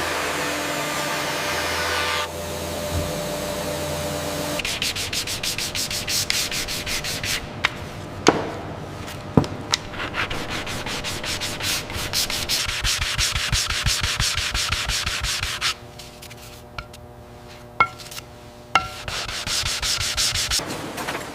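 Rapid, repeated sanding strokes, many per second, over a steady machine hum at the start. The strokes stop for a few seconds near the end, leaving a few sharp clicks, then start again.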